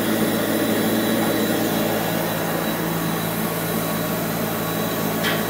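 Paint spray-booth equipment running: a steady whoosh of air over a low mechanical hum.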